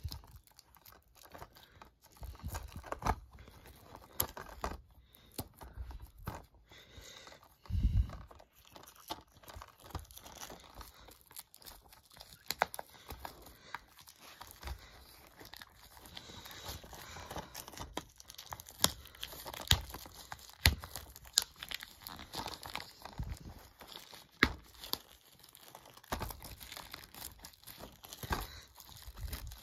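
Plastic shrink wrap being torn and peeled off a Blu-ray case, crinkling, with sharp crackles throughout and one heavier bump about eight seconds in.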